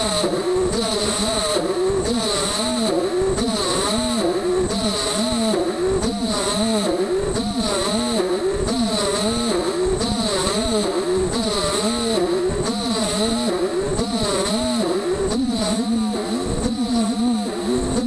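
Beaver HDZero CNC router milling an aluminum plate: a pitched mechanical whine that rises and falls about twice a second as the machine moves back and forth, over a steady high whine.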